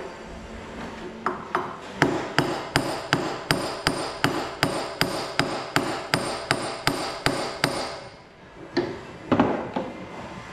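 Hammer blows on a steel bearing-puller set-up, tapping at a tight bush in a traction engine's weigh shaft bracket. After a couple of light knocks come about sixteen steady blows at roughly three a second, each with a bright metallic ring. A short pause follows, then two more blows.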